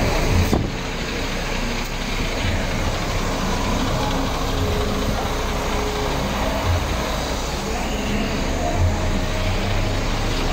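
Large coach diesel engines running close by, a steady rumble, with passing road traffic.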